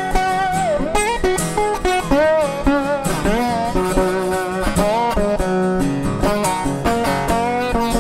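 Fender resonator guitar played with a slide: a bluesy lead line of plucked notes that glide up and down in pitch between held tones.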